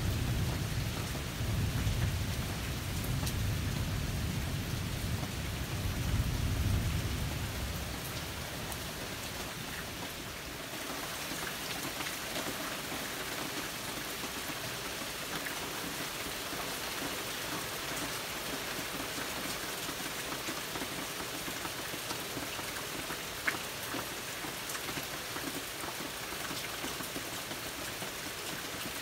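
Steady rain falling, with a low rumble of thunder that dies away over the first several seconds. After that, only the even hiss of rain and runoff from a roof edge, with one sharp tap about two-thirds of the way in.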